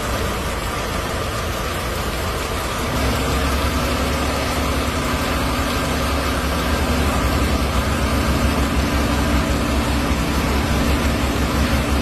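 Small petrol engine of a walk-behind concrete power trowel running steadily, growing louder about three seconds in.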